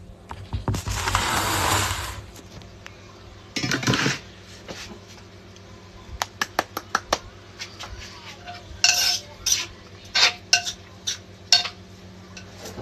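Scraping inside a mortar. There is a long scrape about a second in and a shorter one near four seconds, then a run of quick clicks and taps mixed with short scrapes.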